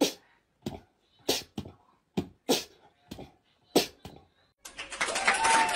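A pet making a series of about eight short, sharp noisy sounds about half a second apart. Near the end louder, continuous sound with music comes in.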